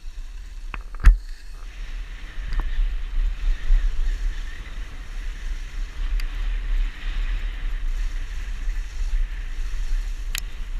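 Dog sled gliding over packed snow: a steady hiss of the runners with a low rumble of wind buffeting the microphone, and a sharp knock about a second in.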